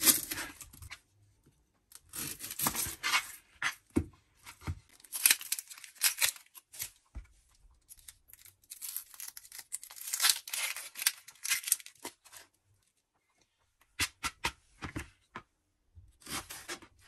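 Dry, papery onion skin being torn and peeled off by hand, with a kitchen knife cutting into the onion on a plastic cutting board. The sound comes in several separate crackly tearing stretches with short quiet gaps, plus a few sharp knife clicks.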